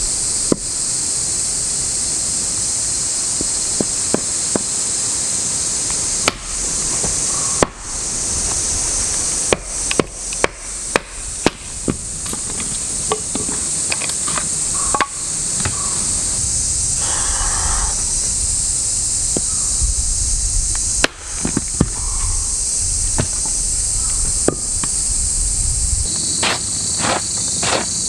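Axe chopping and splitting wood on a stump: irregular sharp knocks, with a quick run of about six strokes around ten seconds in and another cluster near the end. A steady high insect drone runs underneath.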